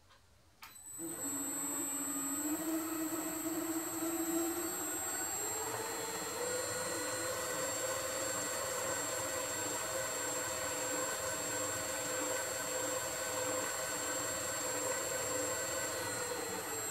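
Electric motor of a home-built lathe slotter, driving its worm-drive gearbox and crank through a speed controller, starts with a click just after the beginning and runs steadily with a high whine. Its pitch rises about five seconds in and drops back near the end as the speed is turned up and down, the mechanism running smoothly.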